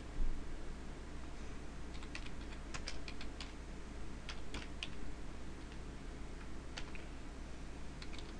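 Computer keyboard keys clicking in short irregular runs of typing with pauses between, over a low steady hum. A single low thump comes just after the start.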